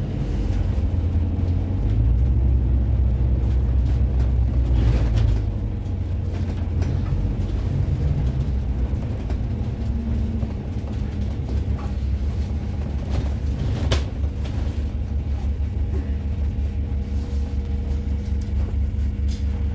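Interior of an Alexander Dennis double-decker bus on the move, heard from the upper deck: a steady low rumble of the drivetrain and road, swelling for a few seconds near the start. A single sharp click comes about two-thirds of the way through.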